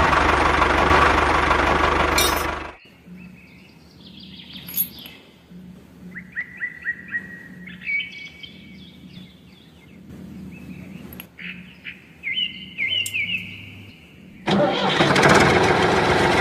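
A vehicle engine running loudly for the first couple of seconds, stopping abruptly, then coming back about fourteen seconds in. In the quiet stretch between, birds chirp in quick rising notes.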